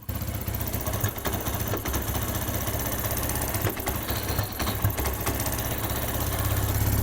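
TVS Apache RTR 160 BS6 fuel-injected single-cylinder engine idling steadily just after a timing chain replacement, running without any timing-chain rattle or tappet noise.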